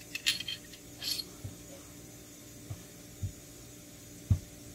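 Sharp metallic clicks of pistol parts as the recoil spring assembly and barrel come out of the slide of a Smith & Wesson M&P Shield .45. Then several dull thuds as the parts are set down on a padded mat, the last one the loudest.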